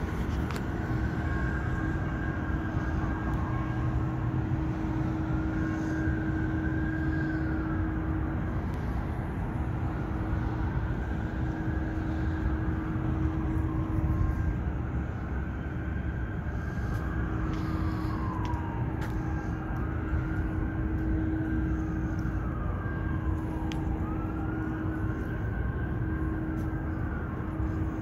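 Outdoor city background: a steady low rumble and hum, with a high whine that rises and falls again and again, about every three to four seconds.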